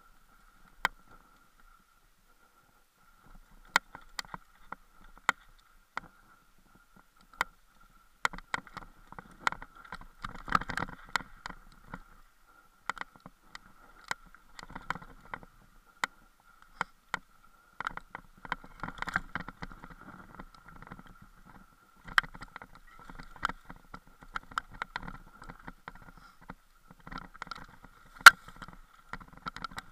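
Mountain bike jolting down a rocky singletrack: sharp knocks and clatter as it hits stones, with stretches of denser rattling, over a faint steady high whine.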